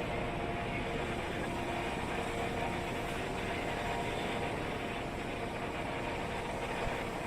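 Steady engine and road noise of a vehicle riding through city traffic, an even rumble with a faint hum over it.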